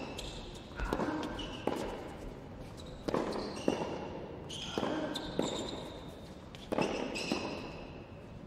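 Tennis rally on an indoor hard court: racket strikes and ball bounces about every three quarters of a second, each echoing in the hall, with short high squeaks from tennis shoes on the court.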